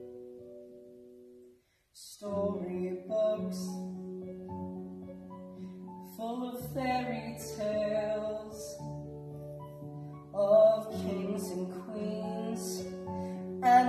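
A man singing a slow ballad to electronic keyboard piano accompaniment. A held chord fades away into a brief pause about one and a half seconds in, then voice and keyboard come back in together.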